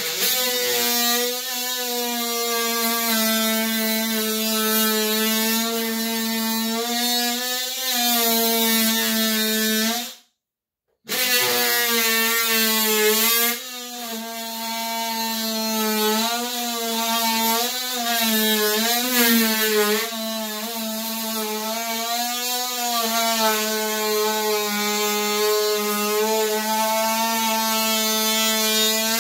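Hand-held power tool buzzing steadily as it cuts into door-frame trim, its pitch wavering slightly as the load changes. It stops dead for about a second about ten seconds in, then runs on.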